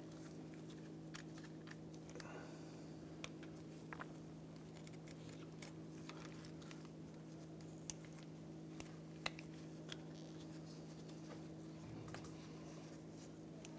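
Faint, scattered small metallic clicks and scrapes of a pick working a C-shaped retaining clip out of a transmission cooler line fitting, over a steady low hum.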